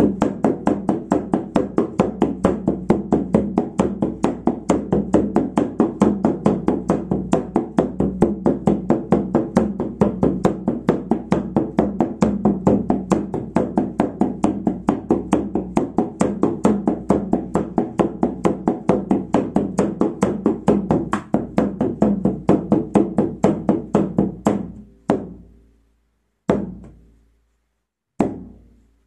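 Shamanic frame drum beaten with a padded beater in a fast, steady beat. About 24 seconds in the roll stops and gives way to single strikes spaced over a second apart, each left to ring out, the drumbeat change that calls the listener back from the journey.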